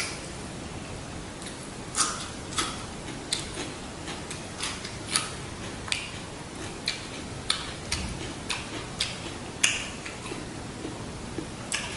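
Close-miked eating and food-handling sounds: irregular, sharp, wet clicks and smacks, about one or two a second, from hands working soft rice paper and lettuce around shrimp and pork and from the mouth, over a faint steady hiss.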